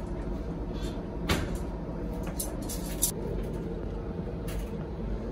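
Two sharp knocks, about a second in and about three seconds in, as a hot loaf tin is lifted out of an oven and handled with tongs. A steady low kitchen hum runs underneath.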